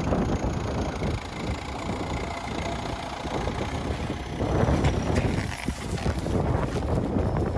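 A vehicle engine running steadily, with wind buffeting the microphone.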